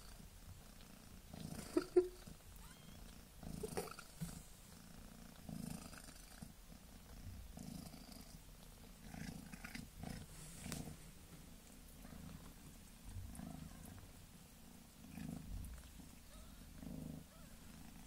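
Mother cat purring softly while newborn kittens nurse, the purr swelling and easing about once every second or two, with a short sharp sound about two seconds in.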